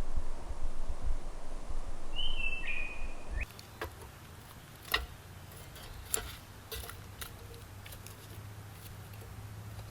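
Forest ambience with a low rumble of wind on the microphone and a bird's short two-part whistled call about two seconds in. After an abrupt change a few seconds in, it turns quieter, with a steady low hum and scattered sharp clicks and crackles.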